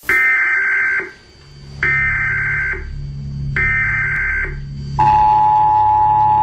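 Emergency Alert System signal: three roughly one-second bursts of high data tones, then the steady two-tone attention signal from about five seconds in, over a low pulsing drone.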